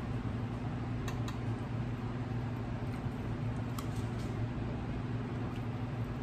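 A person chewing food with the mouth closed, with a few faint mouth clicks, over a steady low hum.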